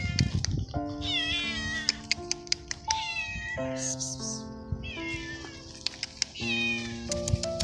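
Male stray cat meowing loudly and repeatedly, about four long meows that fall in pitch, which the owner puts down to hunger and to being in heat. Background music with sustained notes plays under it.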